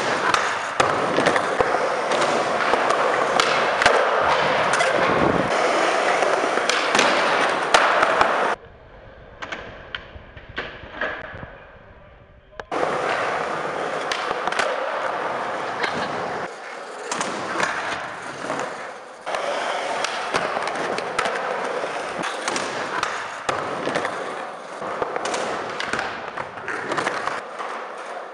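Skateboard wheels rolling over smooth concrete, with repeated sharp clacks of tail pops, flip tricks and landings. About a third of the way in, the rolling drops away to a quieter stretch of a few seconds with scattered knocks, then picks up again.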